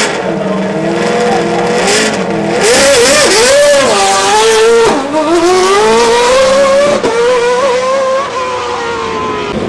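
Single-seater racing car's engine revving hard and pulling away, then accelerating, its pitch climbing and dropping sharply at upshifts about five and seven seconds in. It grows quieter near the end.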